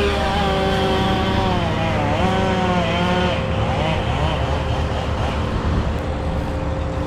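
An engine running steadily with a low rumble, while tones rise and fall over it during the first few seconds.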